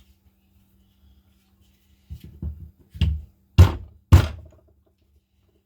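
A handful of knocks and thuds as hard tool parts are handled and set down on a workbench, the last two the loudest, about half a second apart.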